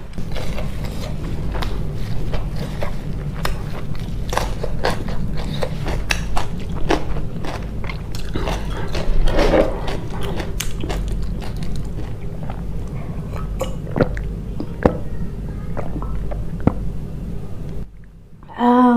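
A person chewing and biting food close to the microphone, with many short crunchy clicks, over a steady low hum. The chewing stops about a second before the end.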